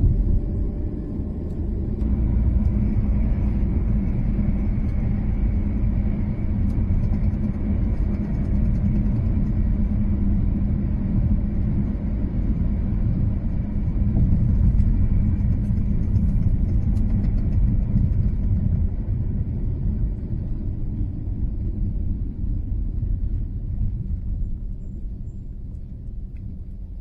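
Steady road rumble and engine noise inside a moving car's cabin. It eases off near the end as the car slows for a red light.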